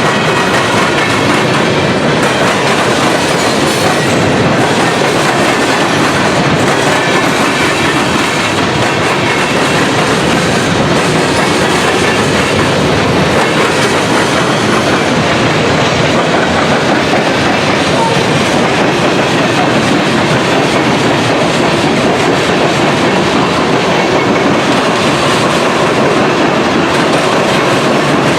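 CSX mixed freight train of intermodal, autorack and manifest cars rolling past, a loud, steady noise of steel wheels on the rails.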